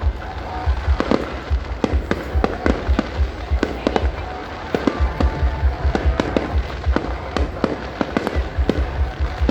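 Aerial fireworks display: a dense, continuous run of sharp bangs and deep booms, several a second.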